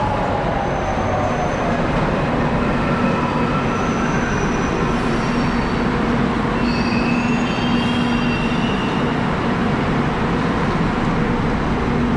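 Kolkata Metro train braking into the platform, with thin high squeals from the brakes and wheels over a steady rumble and hum as it slows to a stop.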